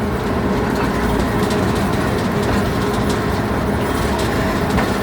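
Ride train rumbling steadily along the track, heard from aboard the moving cars, with faint scattered clicks of the wheels on the rails.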